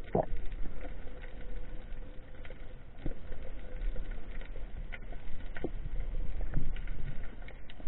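Underwater sound picked up by a camera in its housing: a steady low rumble of water with scattered clicks and crackles, and a sharper knock just after the start.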